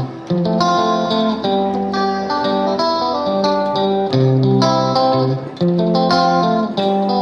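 Intro music led by a plucked guitar, playing sustained chords over a low bass.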